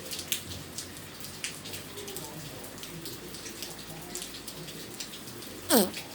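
Hail and rain coming down, with many scattered sharp ticks of hailstones striking surfaces over a steady hiss. Near the end comes one brief, louder sound that falls in pitch.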